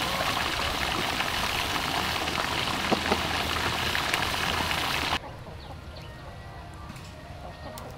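A wood fire in a clay stove crackling under a dense, steady sizzling hiss, which cuts off abruptly about five seconds in. After that comes a faint outdoor background with a few short bird chirps.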